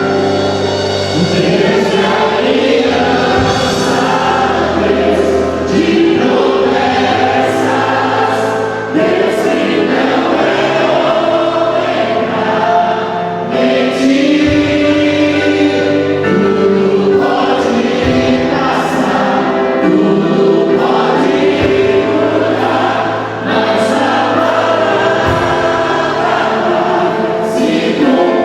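Christian worship music: a choir singing sustained, held notes over steady low accompaniment.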